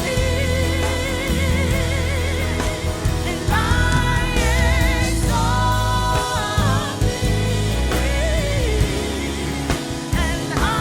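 Live worship music: singers hold long notes with vibrato over a band with a heavy bass.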